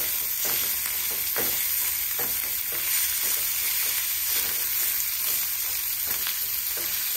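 Diced pork belly sizzling in hot oil in a metal pan, stirred with chopsticks that tap and scrape against the pan every second or so.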